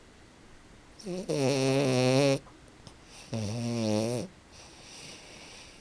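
French bulldog snoring while asleep: two loud, rough, wavering snores, the first about a second and a half long and the second about a second, with faint airy breaths between.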